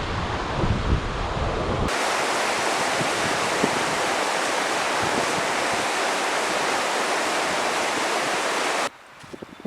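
Wind buffeting the microphone, then about two seconds in a steady loud rush of fast-flowing stream water cuts in and holds until it stops abruptly near the end.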